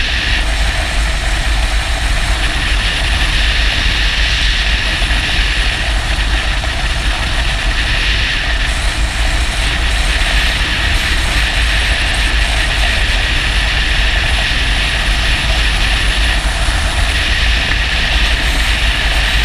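Motorcycle riding steadily at highway speed: a constant rush of wind over the camera microphone mixed with engine and tyre noise, with a heavy low rumble.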